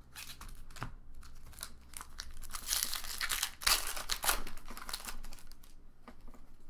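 Foil booster pack wrapper crinkling and tearing open, with the crackle heaviest around the middle.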